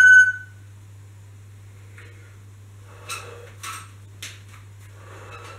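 A short, loud electronic beep at the very start, then a steady low hum. From about three seconds in come a few short scraping sounds, roughly half a second apart, from a Bullworker spring exerciser being compressed and released.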